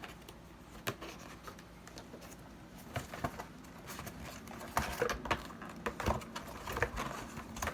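Scattered light clicks and taps of small hard objects being handled, sparse at first and more frequent in the second half.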